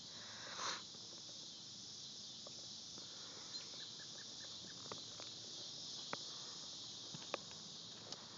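Quiet background ambience: a faint steady high hiss with a few faint scattered clicks, and a short run of about five soft chirps around four seconds in.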